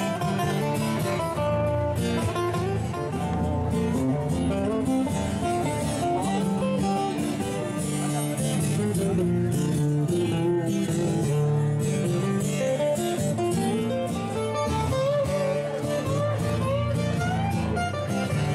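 Live acoustic guitar duo playing a bluesy tune: strummed chords under a picked melody line that slides between notes.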